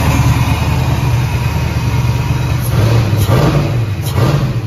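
1990 Camaro's fuel-injected V8 engine running loudly, with two short throttle blips about three and four seconds in as the throttle is worked by hand at the throttle body.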